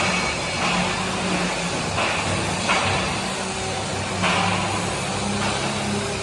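Steady workshop machinery noise: a low electrical hum under a hiss that swells and fades every second or so.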